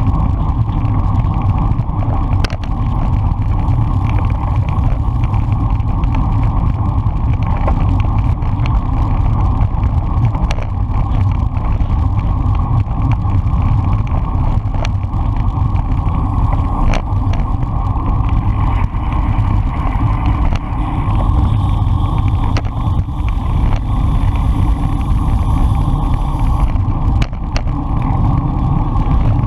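Wind rushing over a handlebar-mounted action camera's microphone as the bicycle rides at race speed in a pack, a steady loud rumble with a few faint clicks now and then.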